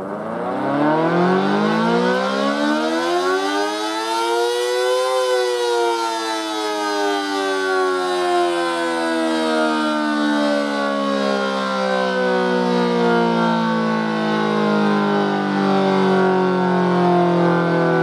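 Federal Model 5 civil defense siren, driven by a 5 hp single-phase motor, being growled: the rotor spins up and the wail rises in pitch for about five seconds, then the power is cut and it winds down slowly, the pitch falling and still sounding at the end.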